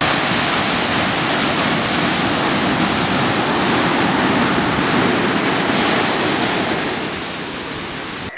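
Sea surf breaking and washing up a sandy beach: a steady, loud rush of water that eases slightly near the end.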